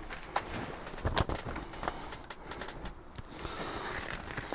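Faint handling sounds on a workbench: a few small clicks and knocks, and a soft paper rustle late on as an instruction sheet is laid out.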